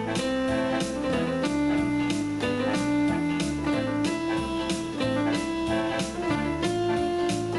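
Synthesizer keyboard played live: a melody of sustained notes over a bass line, with a steady beat of about two strokes a second.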